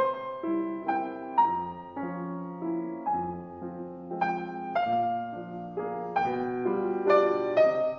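Slow solo piano music: single notes and chords struck about twice a second and left to ring.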